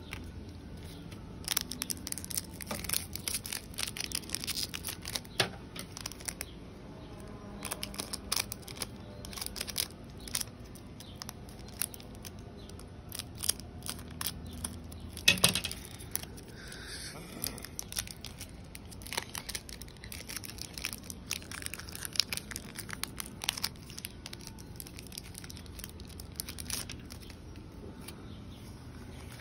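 Foil Pokémon booster-pack wrapper crinkling and tearing as it is handled and cut open with scissors, with cards rustling. The sound comes as many short crackles, with one louder crackle about halfway through.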